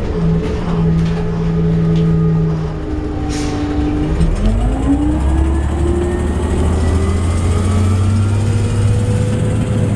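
Interior sound of an Orion VII CNG transit bus in motion. The engine and driveline whine fall in pitch as the bus slows, with a short hiss about three and a half seconds in. From about four seconds in, the pitch rises again as the bus speeds up.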